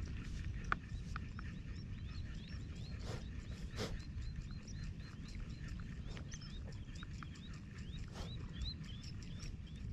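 Wind rumbling on the microphone, with a quick run of short, rising high chirps, about two or three a second, through the middle, and a few faint clicks and brief swishes in the first few seconds.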